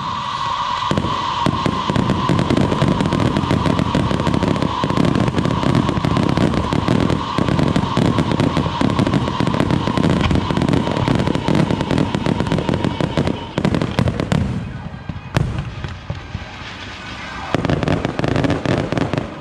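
Fireworks display: dense, rapid crackling and popping of rising comets and bursting shells, with a steady high tone running underneath. The tone and much of the crackle die down about fourteen seconds in, a single sharp bang follows, and the crackling picks up again near the end.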